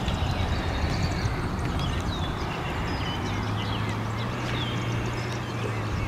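Birds chirping with many short high calls, scattered over a steady background hiss. A low steady hum comes in about three seconds in.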